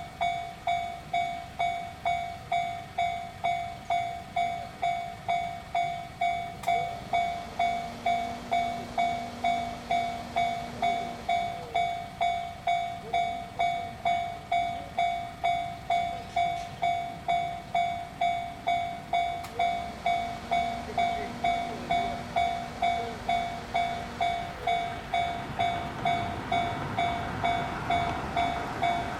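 Japanese railroad crossing warning bell ringing in a steady, even rhythm of about two strokes a second. Near the end, the rumble of an approaching train grows underneath it.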